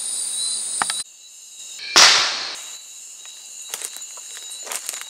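Insects chirring steadily in the forest until about a second in. Then a single loud gunshot about two seconds in, fading out over about half a second, followed by a few faint clicks and rustles.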